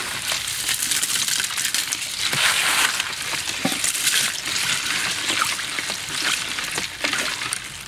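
Ice cubes clinking and liquid sloshing in a stainless steel bowl as avocado slices, ice and milk are stirred with a spoon: a dense run of small clicks and splashes.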